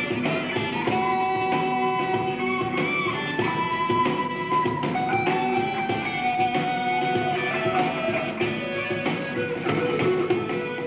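Live rock band playing an instrumental passage: electric guitars and drum kit, with a lead line of long held notes over the chords.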